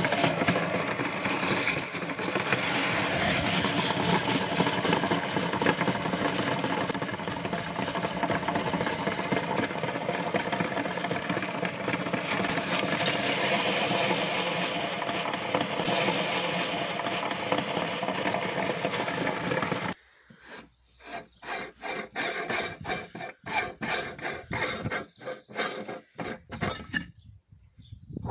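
Meat grinder grinding salted pretzel sticks, a steady dense grinding and crushing noise. About 20 seconds in it stops abruptly, and short metallic clinks and knocks follow as the grinder's ring and cutting plate are handled and taken off.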